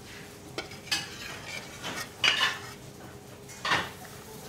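Metal spoon scraping a frying pan and clinking against a ceramic bowl as pasta in tomato sauce is served out: a handful of short, separate scrapes and clinks.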